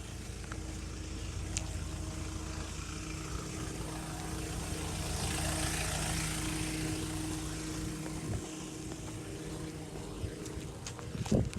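A passing vehicle's engine hum, growing louder around the middle and fading again, with a short knock near the end.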